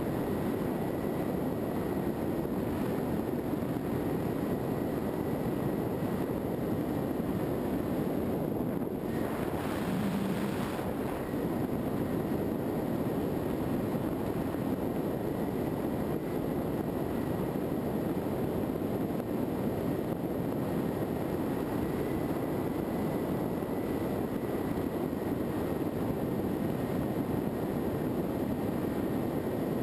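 Wind rushing over a GoPro mounted on a Skywalker FPV model plane in flight, with the steady drone of its electric motor and propeller and a faint high whine. A brief burst of hiss comes about nine seconds in.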